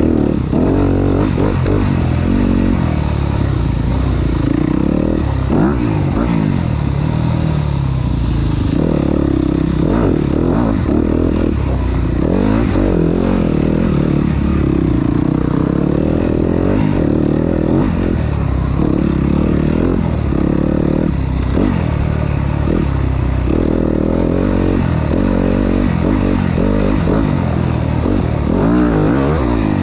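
Enduro dirt bike engine running under load, its revs rising and falling with the throttle, with the bike rattling and knocking over rough, rocky ground.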